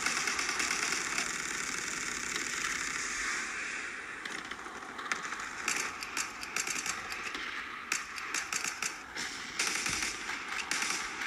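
Gunfire sound effects for a battle scene: a dense, continuous wash of firing at first, then from about five seconds in separate bursts of machine-gun fire and single shots.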